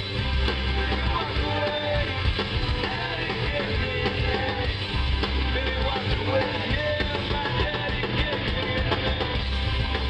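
Live rock band playing through a PA: drums, bass and electric guitars, with a singer's voice over them.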